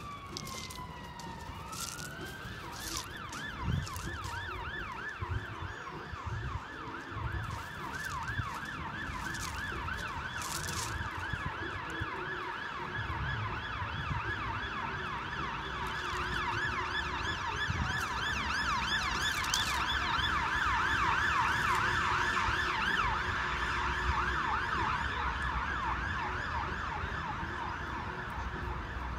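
Emergency vehicle siren: a long falling wail winds down at the start, then about two seconds in it switches to a fast, rapidly repeating yelp that grows louder toward the middle and eases off a little near the end, as the vehicle passes.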